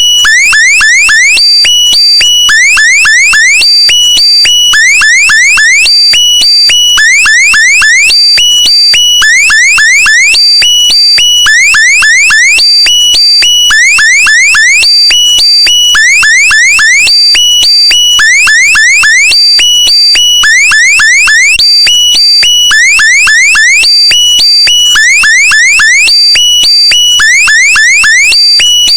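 Loud, alarm-like sound effect: clusters of quick rising chirps repeating about once a second over steady high tones, looping without change.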